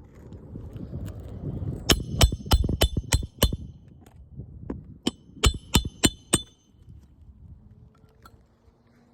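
Hammer driving roofing nails back into asphalt shingles: a quick run of six blows, about three a second, then after a short pause four more, each blow with a brief metallic ring.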